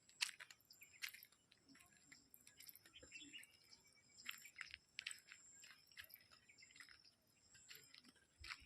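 Near silence: faint scattered clicks and crackles over a faint steady high tone.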